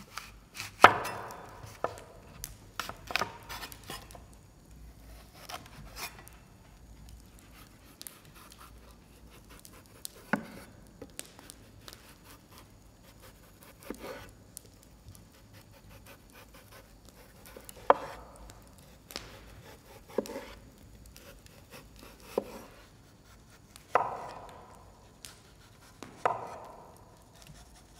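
Knife chopping food on a cutting board: a quick run of strokes in the first few seconds, then single cuts every two to four seconds, each a sharp knock with a short ring.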